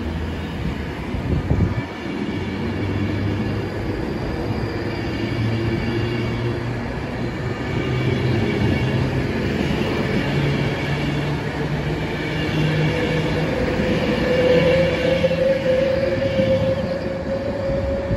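Avanti West Coast electric train running along the platform, with a steady rumble of wheels on the rails and low motor tones that step up in pitch as it gathers speed. A rising whine comes in over the last few seconds.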